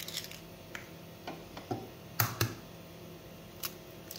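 Eggs being cracked open by hand over a bowl: scattered small clicks of eggshell breaking, with a sharper double knock about two seconds in.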